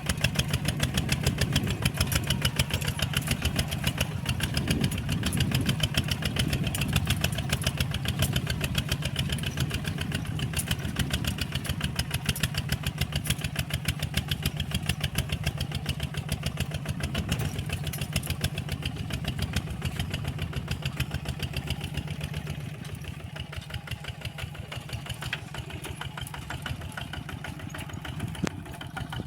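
Walking tractor's engine running steadily with a rapid, even chug, dropping a little in level about three-quarters of the way through.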